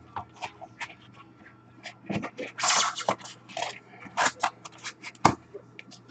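Rustling, scraping and small clicks of a trading-card box and pack being opened and the cards handled, with one sharp click about five seconds in.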